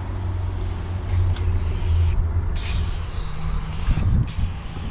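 Aerosol spray paint can hissing in three long bursts, starting about a second in, as paint is sprayed on, over a steady low hum.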